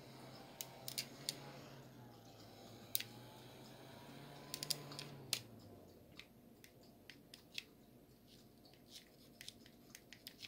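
Small handheld electric fan running with a faint low hum. The hum stops a little past halfway through, with light sharp clicks and ticks scattered throughout.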